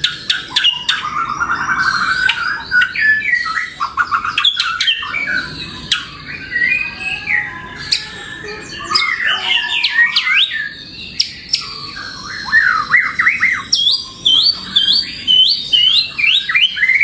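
White-rumped shama singing a long, varied song. It mixes rapid sharp clicking notes, clear whistles and chatters, and near the end a run of quick rising sweeps repeated several times.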